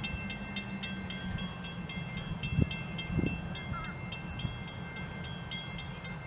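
Railroad grade-crossing bell ringing rapidly, about four strikes a second, over the low rumble of approaching EMD diesel locomotives, a GP38-2 and a GP18. Two sharp knocks sound about two and a half and three seconds in.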